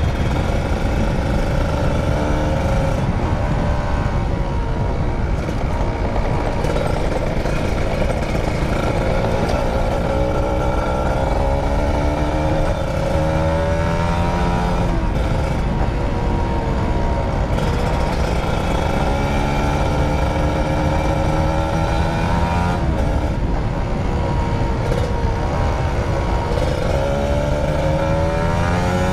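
Motorcycle engine running while riding, its pitch rising and falling again and again as the rider speeds up and slows down, over a constant rush of wind and road noise.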